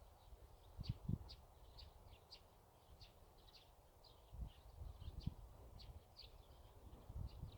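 Small birds chirping faintly in quick short calls, several a second, over a quiet rural background. A few dull low thumps come about a second in and again around the middle.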